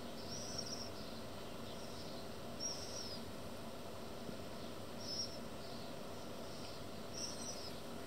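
A bird's short, high chirp, repeated four times at an even pace of about one every two and a half seconds, over a steady background hiss.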